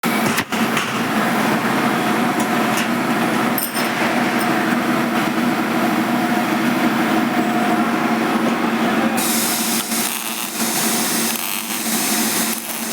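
A power tool or workshop machine running steadily, with a constant hum under a hissing noise that turns brighter and harsher about nine seconds in.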